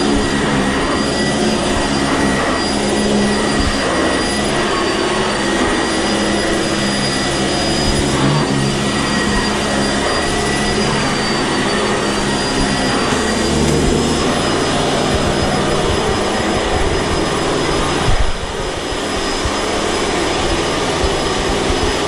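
Bagged upright vacuum cleaner running, a steady motor noise with a thin high whine over a low hum. A brief knock about eighteen seconds in, after which it runs a little quieter.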